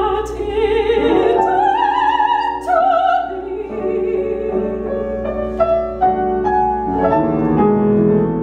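A female opera singer sings the closing phrases of an aria with a wide vibrato over grand piano accompaniment. Her voice stops a little before halfway, and the piano plays the final bars alone.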